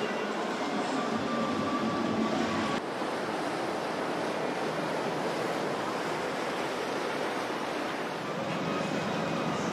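Steady rushing noise of water and wind on the microphone from aboard a moving boat, with a few faint steady tones underneath. The sound changes abruptly about three seconds in.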